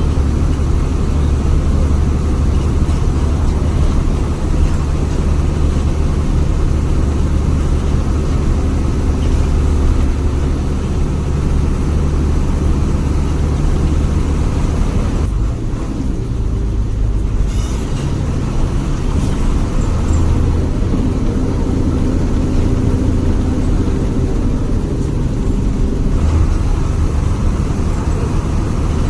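Bus engine running under way, a steady deep growl that the title calls 'ngorok' (snoring). About halfway through the note briefly drops and shifts before carrying on.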